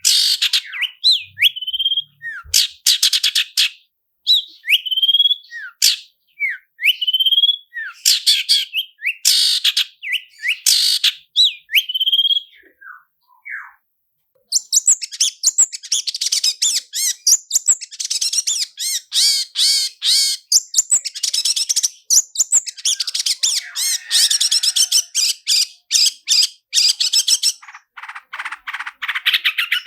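Long-tailed shrike (cendet) singing: short rising whistled notes broken by quick harsh bursts, then after a brief pause about halfway, a long, very rapid rolling trill that runs almost without a break.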